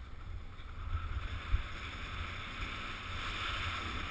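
Skis sliding and scraping over snow while turning, a hiss that grows louder near the end, over a low wind rumble on the microphone with one sharp thump about a second and a half in.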